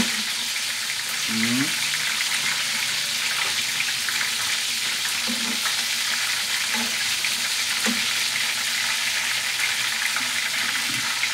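Chicken drumsticks frying in hot oil in a pan, a steady crackling sizzle.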